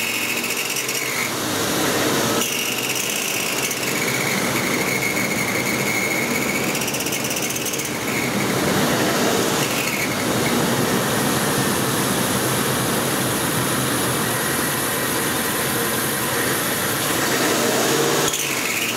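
Ford 5.4 V8 engine held at about 3,000 rpm, with a high-pitched squeal that wavers up and down in pitch over the engine noise and is called a really annoying sound. The engine is revving against a plugged exhaust, with back pressure of about 6 to 9 psi at the DPFE port, and it has a misfire on cylinder 8.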